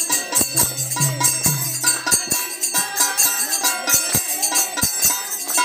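Devotional folk music with singing, jingling tambourine-like percussion and a beat of sharp strokes a few times a second. A low steady tone stops about two seconds in.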